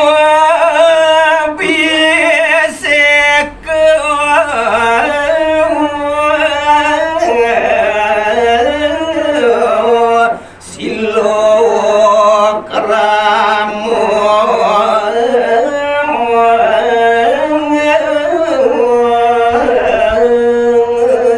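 A solo male voice singing a line of Balinese geguritan in a pupuh Sinom melody: long held notes, ornamented and wavering in pitch, with a short breath about halfway through.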